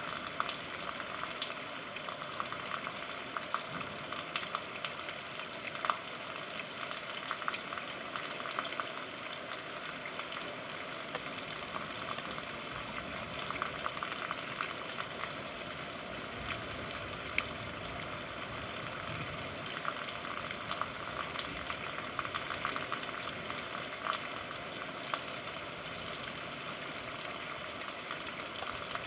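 Steady rain: a dense, even patter of drops with many small individual drop ticks on top.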